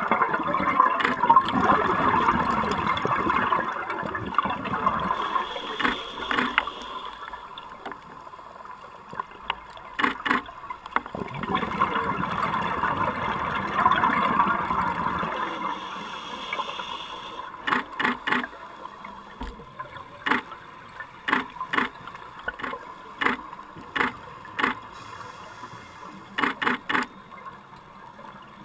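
Underwater scuba breathing: a diver's exhaled regulator bubbles rush past the camera housing in two long bubbling bursts, one at the start and one about twelve seconds in. In between and through the second half come sharp clicks, often in pairs, from the underwater still camera and its strobes firing.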